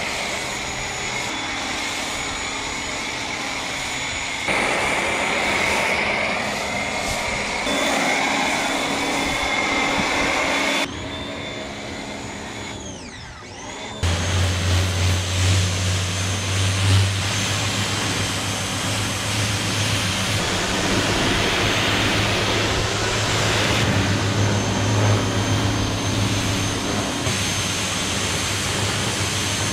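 Pressure washer running, its motor and pump whining under the hiss of the water jet spraying onto the motorcycles. The sound changes abruptly several times; about 12 seconds in the whine falls in pitch, then it comes back with a deeper, steady hum.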